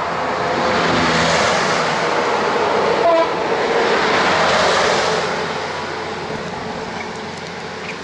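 A truck passing on the road, its engine and tyre noise swelling over the first second, staying loud for a few seconds, then slowly fading away.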